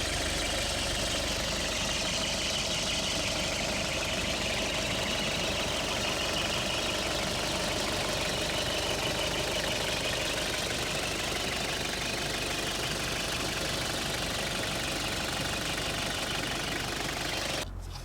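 Early Toyota Land Cruiser Prado 78's turbo-diesel engine idling steadily with diesel clatter, running on fresh oil after an oil change; it stops abruptly near the end.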